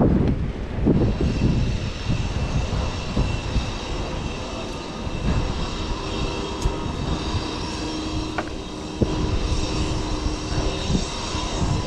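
Aircraft engine whine: a steady, high-pitched set of tones that sets in about a second in, with lower tones joining midway. Wind buffets the microphone underneath.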